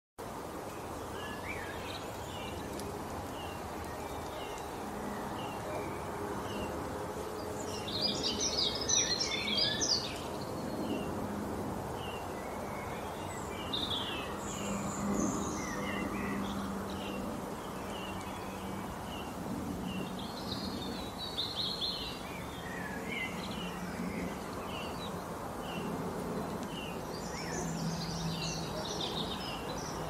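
Small birds chirping and twittering: many short high chirps, with denser bursts of twittering every several seconds, the loudest about eight seconds in, over a steady low background noise.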